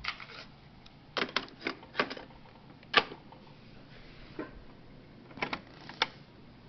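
Plastic clicks and clunks of a JVC PC-150 boombox's cassette deck being worked by hand: the cassette door shutting and the piano-key transport buttons being pressed. About a dozen sharp clicks come singly and in quick clusters, the loudest about three seconds in.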